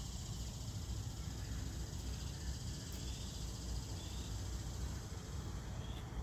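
Steady chorus of insects, a continuous high buzz, over a low rumble, with a few faint short chirps.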